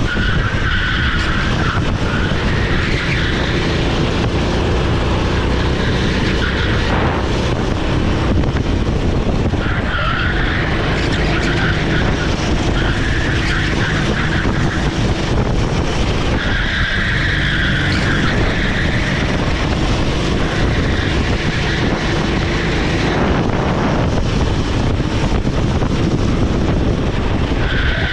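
Honda GX390 single-cylinder four-stroke engine of a Sodi SR4 rental kart running hard at racing speed, with tyres squealing through the corners several times.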